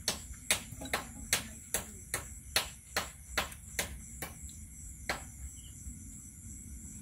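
Crickets chirping steadily, with a run of about a dozen sharp, evenly spaced taps, roughly two and a half a second, that stop about five seconds in.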